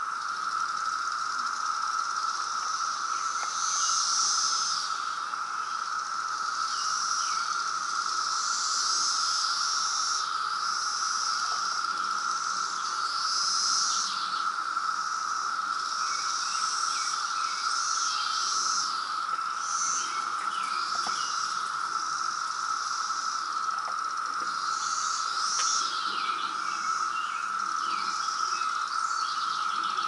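A chorus of periodical cicadas: one steady, unbroken drone, with an irregular, fluttering higher sound over it.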